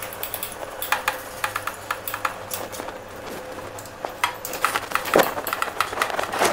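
Metal hand tools clinking and knocking against the leveling screws and feet of a flat knitting machine, an irregular run of sharp clicks that grows busier toward the end, over a faint steady hum.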